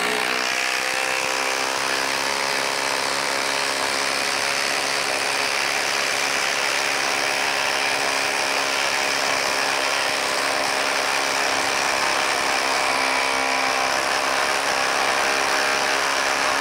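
Ryobi P238 brushless impact driver hammering steadily as it drives a long lag screw into a wooden log under sustained heavy load, without letting off.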